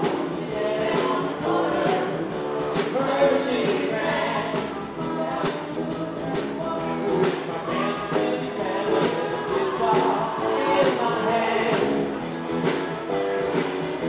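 Live band playing an upbeat rock song with group singing over a steady drum beat and electric guitar.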